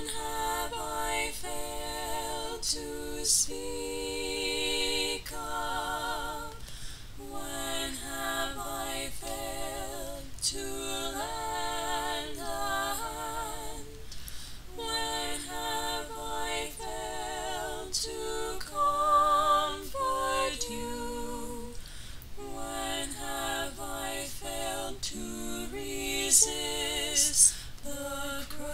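A woman singing unaccompanied: slow held notes with a clear vibrato, in phrases with short pauses between them.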